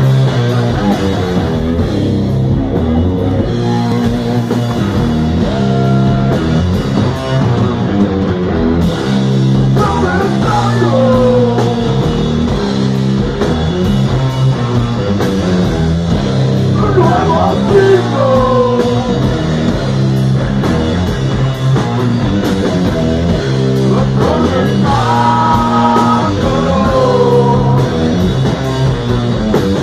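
Live heavy rock band playing loud: electric guitars, bass guitar and drum kit, with a melodic line that bends in pitch at a few points.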